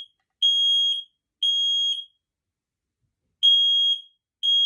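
Smoke alarm's piezo sounder beeping while its test button is held, in the temporal-three alarm code: high-pitched beeps of about half a second each in groups of three, one a second, with a pause of about a second and a half between groups.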